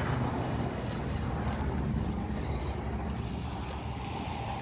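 John Deere tractor's diesel engine idling steadily, a low even rumble.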